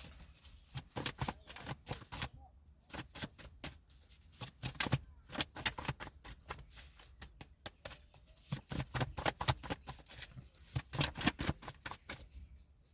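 A deck of cards being shuffled and handled: a run of quick, irregular clicks and flicks, busiest about a second in and again from about eight to eleven seconds in.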